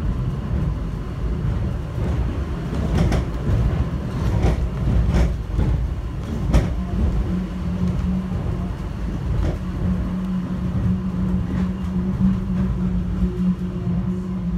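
Airport subway train running between stations: a steady low rumble with occasional knocks and rattles, and a steady low hum that sets in about halfway through.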